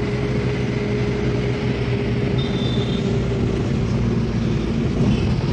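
Taxi engine and road noise heard from inside the car's cabin while driving, a steady drone with a constant low hum.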